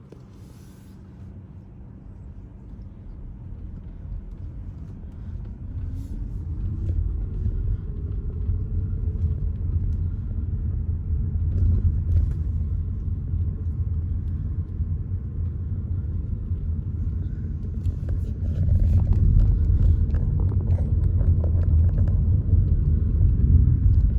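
Car engine and road rumble as the car pulls away and picks up speed, with an engine tone rising in pitch over the first several seconds. The rumble grows louder again about three-quarters of the way through.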